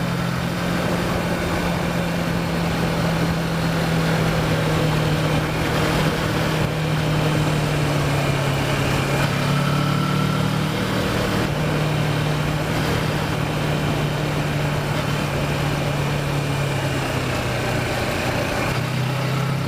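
Kawasaki Versys motorcycle engine running steadily while riding, under a haze of wind noise. Its pitch steps up about halfway through and shifts again near the end as the speed changes.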